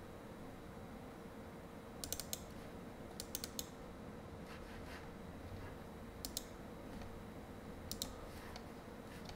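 Computer mouse buttons clicking in quick pairs and small clusters, a few seconds apart, over a faint steady hum.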